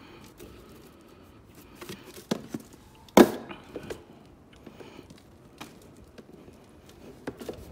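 Beetle substrate mat being poured into a rearing case: scattered light knocks and handling noises, with one sharp knock about three seconds in, the loudest sound.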